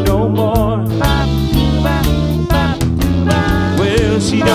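Blues song playing, with a steady beat and a wavering lead melody.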